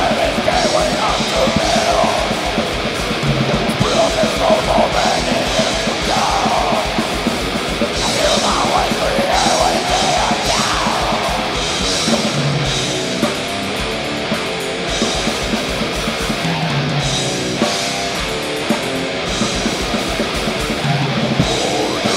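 Death metal band playing in rehearsal: heavily distorted electric guitars riffing over a fast, even double-bass kick drum and cymbals.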